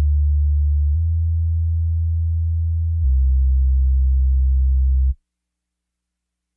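Deep, steady electronic bass tones from a song's closing backing track. They shift twice and then cut off suddenly about five seconds in.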